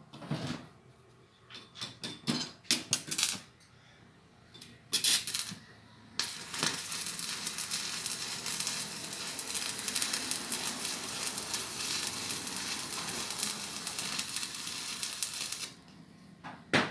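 Stick (arc) welding with a flux-coated electrode. A few short clicks and brief crackles come first, then about six seconds in the arc strikes and crackles steadily for about ten seconds while a third weld run is laid half over the previous bead, before cutting off suddenly.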